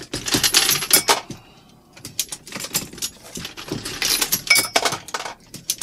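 Brass 9mm cases and cartridges clinking and rattling as a progressive reloading press is worked: a rapid, irregular run of sharp metallic clinks, with a short lull about a second and a half in.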